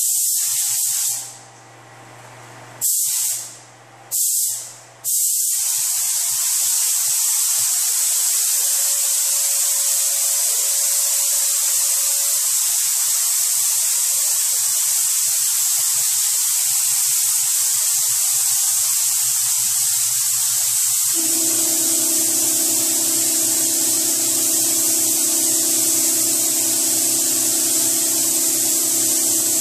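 Compressed-air paint spray gun hissing: three short trigger pulls in the first few seconds, then a long continuous spray. A steady low hum joins in about two-thirds of the way through.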